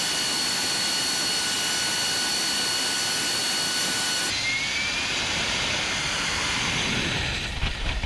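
AV-8B Harrier II's Pegasus turbofan running at high power, a loud steady jet rush with a high turbine whine. About four seconds in, the whine cuts out and the jet rush carries on, with a deep rumble building near the end.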